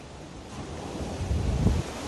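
Wind buffeting the microphone: a gusty low rumble that builds about a second in.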